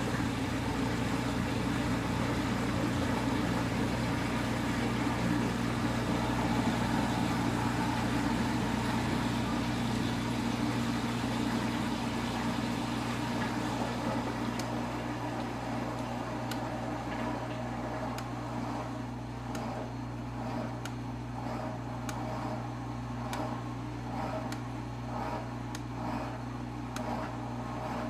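Dishwasher running: a steady motor hum with a wash of water noise, and from about halfway through a regular pulsing swish a little over once a second.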